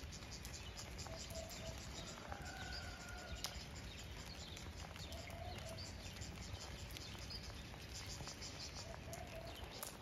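Steady rain falling, with drops tapping irregularly. A bird calls in short notes: three brief low calls spread through, and a higher held note about two seconds in.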